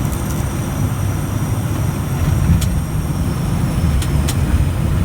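Steady low rumble of an ATR 72 turboprop airliner during its landing, with a few faint clicks.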